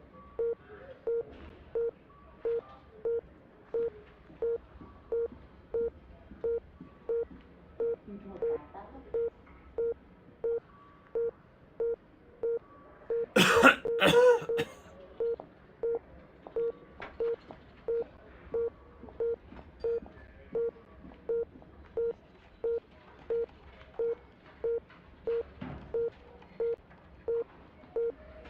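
Bedside patient monitor beeping steadily, about one and a half beeps a second, in time with the heartbeat. About halfway through, a man coughs hard twice, the loudest sound here; it is the cough of a patient ill with fever.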